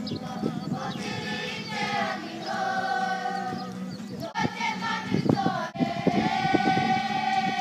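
A large group of school children singing a Māori song together, many voices on one sustained melody, with a few sharp percussive hits around the middle.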